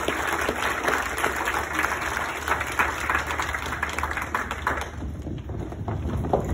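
Audience applause, dense at first, then thinning and dying away about five seconds in, leaving a few scattered claps and taps.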